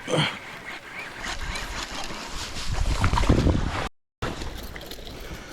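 Wind buffeting the microphone on an open bass boat, a rumbling gust that builds for a couple of seconds. The sound cuts out completely for a moment about four seconds in, then lower wind noise carries on.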